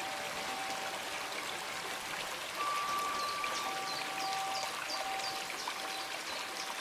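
Water streaming and trickling steadily. Soft sustained bell-like tones ring over it, a higher one entering a little over two seconds in, and a run of short high chirps comes in the second half.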